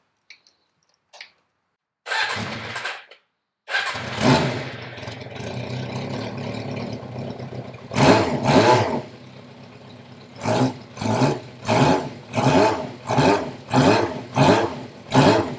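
Yamaha Seca II (XJ600) inline-four motorcycle engine starting: a brief burst of cranking about two seconds in, then it catches about a second later and runs steadily. It is revved hard about eight seconds in, then blipped rhythmically, about three revs every two seconds, through the rest.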